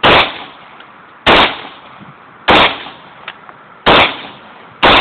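Gunshots on a firing range: five loud shots at a steady pace, roughly one every second and a bit, each with a short echoing tail.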